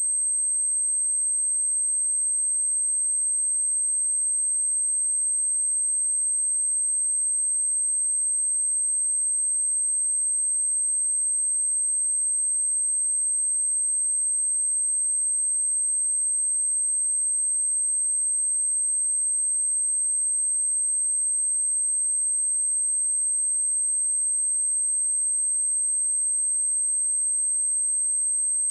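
A pure 8306 Hz sine-wave test tone, one steady high-pitched whistle at constant loudness, played to test a speaker or to shake water and dust out of it.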